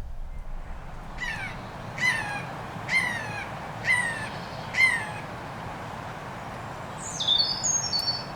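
A large bird calling five times, about a second apart, each call short and harsh and falling in pitch, followed near the end by a songbird's quick high chirps.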